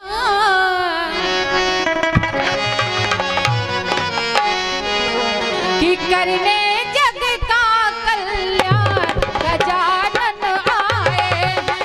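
Hindi devotional bhajan to Ganesh performed live: a woman sings an ornamented, sliding melody, accompanied by a harmonium and hand drums keeping a steady beat.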